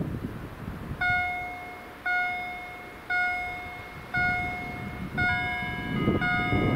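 Level-crossing warning bells (GZT 30 acoustic signals) start about a second in, striking about once a second, each ding ringing and fading: the crossing is activating for an approaching train. About five seconds in a second bell at a different pitch joins, out of step with the first. A low rumble builds near the end.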